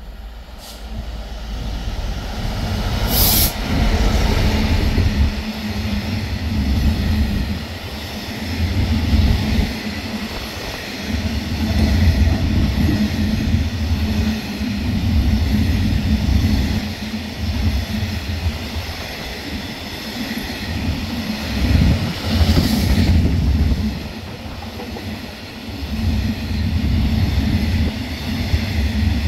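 A train running close by: a loud, steady low rumble of wheels on the track that swells and eases repeatedly. Two brief sharp high-pitched noises stand out above it, one about three seconds in and one near the end.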